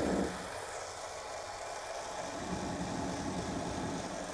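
Model Class 37 diesel locomotive running on a rolling road at a steady speed, a low hum of motor and rollers. It is fairly quiet because the rolling road rests on old Hornby foam track bed, which keeps much of the vibration from carrying into the baseboard.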